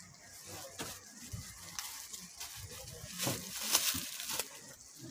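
Clear plastic garment bags rustling and crinkling as packaged clothes are handled, in irregular crackles that are loudest about three to four seconds in.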